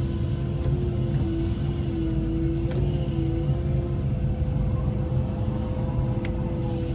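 Cat 312E L excavator working, heard from inside the cab: a steady diesel rumble with a hydraulic whine that shifts a little in pitch as the boom lifts a loaded bucket and swings. A couple of sharp clicks cut in, about a third of the way in and near the end.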